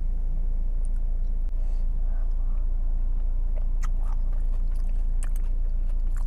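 Steady low rumble of an idling car heard inside the cabin, with a few light clicks of a metal spoon against a ceramic soup bowl.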